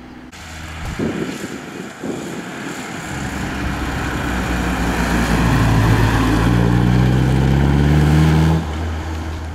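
Classic Triumph TR3 rally car's four-cylinder engine accelerating hard out of a hairpin. The note climbs steadily in pitch for several seconds, then drops suddenly near the end as the driver lifts off.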